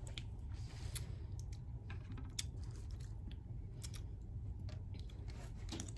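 Faint mouth sounds of someone chewing a small fruit, with scattered soft clicks and smacks at irregular moments.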